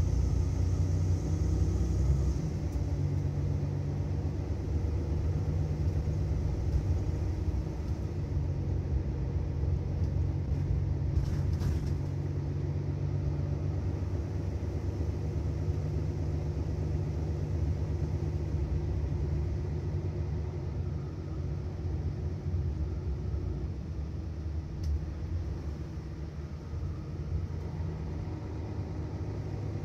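Mercedes-Benz Citaro city bus engine running with a steady low rumble that eases off slightly over the last third. There is a brief high rattle about eleven seconds in.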